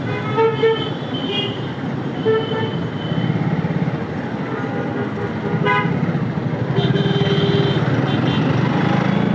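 Vehicle horns honking in stopped city traffic: several short toots and a longer blast about seven seconds in, over the steady rumble of idling engines.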